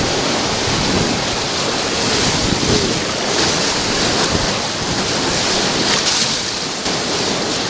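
Whitewater rapid rushing and splashing steadily around a raft as it runs through.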